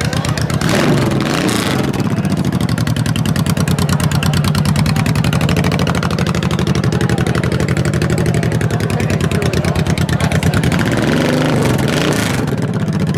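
Motorcycle engine running with a steady, fast pulsing beat, briefly revving about a second in and again near the end.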